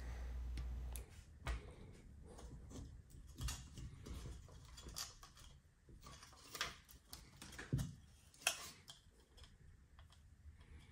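Faint scattered clicks and taps of small plastic parts and wire leads being handled as a receiver is fitted to an RC motorcycle chassis. A low hum stops about a second in.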